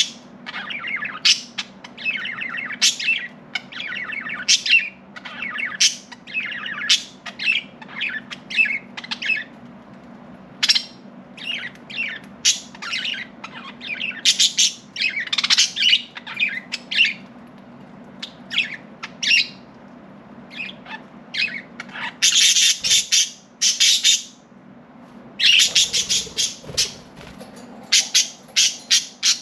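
Several budgerigars chirping in quick, irregular chatter, with bursts of louder, harsher squawks about three-quarters of the way through. A faint steady low hum runs underneath.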